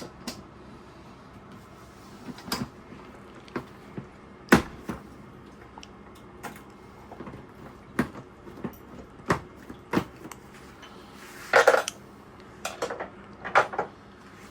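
Irregular knocks, clunks and clicks as the seat of a motorcycle is handled and fitted back onto the bike. There are about a dozen separate sharp knocks, the loudest about four and a half seconds in, with a small cluster near the end.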